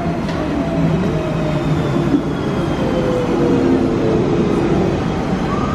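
London Underground Central line train (1992 Stock) pulling into the platform: a loud rumble of wheels on rail with a whine that slowly falls in pitch as it slows, and a short rising tone near the end.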